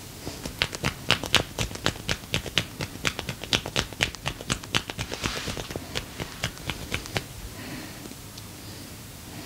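A massager's hands striking the skin in a fast, uneven run of sharp taps and slaps, about four a second, for roughly seven seconds before stopping.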